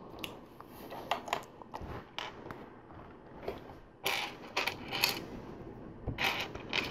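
Small plastic LEGO pieces clicking and knocking as they are handled and pressed onto a build: a scatter of light clicks, with a busier run of knocks about four seconds in and again near the end.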